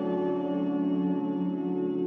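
Background music of held, ringing notes with no beat.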